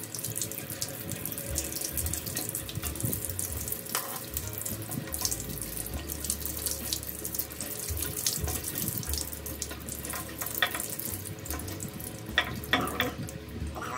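Water pouring and dripping from a disconnected toilet-tank supply hose and splashing onto a tiled floor: the water left in the line draining out after the main has been shut off. A few sharp knocks sound near the end.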